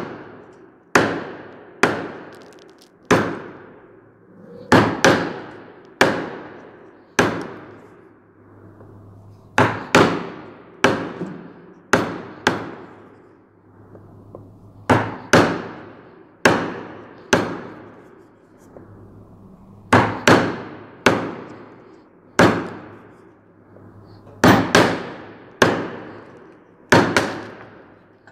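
A mallet striking the handle of a wood-carving chisel as it cuts into a wooden moulding: sharp knocks, about one a second, in short runs with brief pauses.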